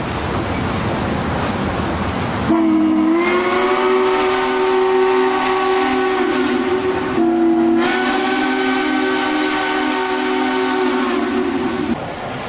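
Steam chime whistle of Southern Pacific GS-4 No. 4449 blowing a long chord of several notes, which rises in pitch as it comes on, then sounds a second long blast with only a brief break. The first seconds hold only the steady rumble of the passing train.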